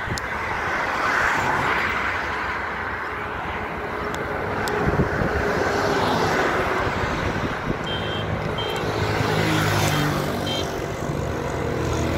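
Outdoor street noise: wind on the microphone and passing vehicle traffic. A vehicle engine hum grows stronger in the last few seconds, with a few short high beeps about eight seconds in.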